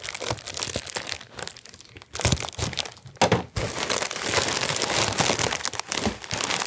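Clear plastic wrapping crinkling as a package of snacks is unwrapped by hand, then a bag of chips crinkling as it is lifted out near the end. The crinkling is sparse at first and nearly continuous from about two seconds in.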